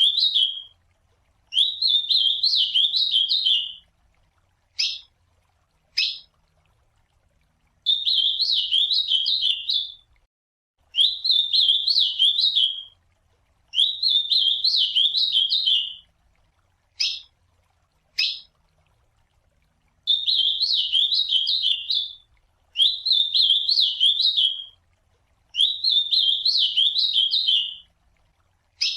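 Ultramarine grosbeak (azulão) singing: a warbled song phrase of about two seconds, repeated every three seconds or so, with short single call notes dropping in pitch in some of the pauses.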